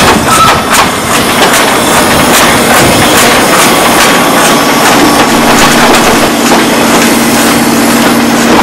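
Zillertalbahn narrow-gauge 0-6-2 steam tank locomotive working slowly past: a loud, steady rush of steam and running gear with scattered clicks. A steady low hum joins it about halfway through.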